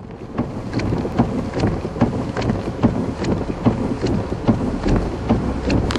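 Tropical-storm wind and heavy rain with a steady low rumble, and a sharp, regular tick about two to three times a second.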